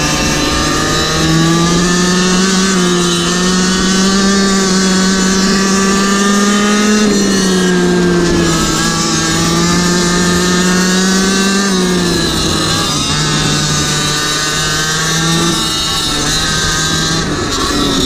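A GoPed GoQuad's small two-stroke engine running at high revs under the rider, its pitch stepping up about a second in, dipping twice as the throttle is eased and reapplied, with wind buffeting the microphone.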